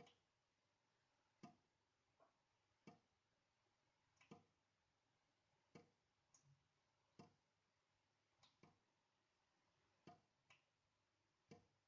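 Faint drips of water falling from a leaking tap into a sink, each a short sharp plink, about one every one and a half seconds, with a few smaller drops falling in between the main ones.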